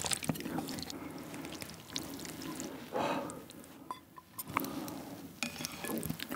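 Wet ramyeon noodles being lifted out of broth with wooden chopsticks: soft squishing and dripping, with scattered light clicks of the chopsticks against the pot and bowl.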